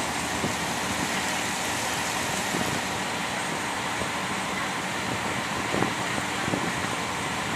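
A canal boat's engine running steadily under way, with a constant rush of water and wind noise.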